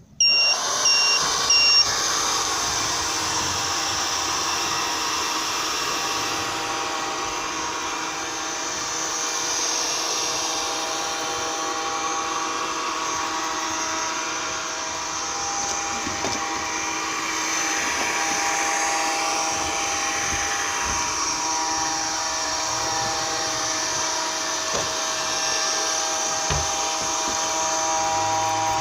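Midea robot vacuum cleaner switching on with a quick series of high beeps, then its suction fan and brush motors running steadily with a whining hum.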